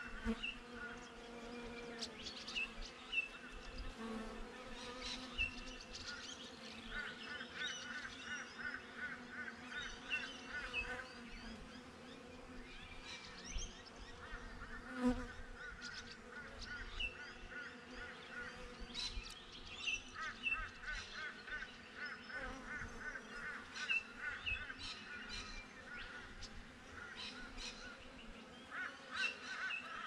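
Honey bees buzzing around a hive's entrance, a steady hum, with birds calling repeatedly over it in quick runs of pulsed notes and short chirps.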